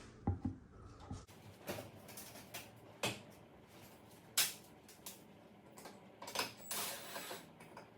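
Handling noise of a Samsung range's glass cooktop being lifted off: scattered knocks and clicks, the loudest about four and a half seconds in, then a short scraping rustle near the end.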